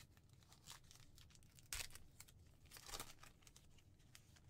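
A Topps Gypsy Queen baseball card pack wrapper being torn open by hand, faint crinkling with two louder rips about two and three seconds in.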